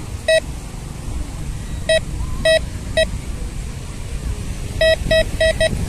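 TD-4030 metal detector giving short target beeps as its search coil is swept over sand: single beeps at first, then a quick run of four near the end. The beeps signal metal buried under the coil.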